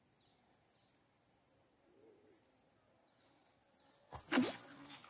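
Steady high-pitched insect chorus. A short, louder sound cuts in about four seconds in.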